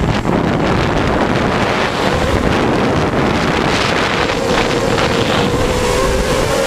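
Wind buffeting an onboard camera microphone over the steady whine of a hexacopter's electric motors and propellers in flight. The motor whine comes through more clearly again in the second half.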